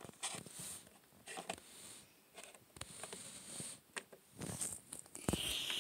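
Faint handling noise of small plastic toy figurines being moved and set down on a table, with a few light taps.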